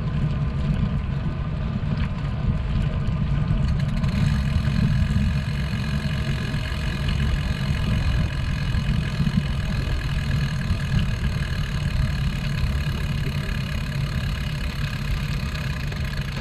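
Wind rumbling over the microphone of a camera on a moving bicycle: a steady low rumble with no break.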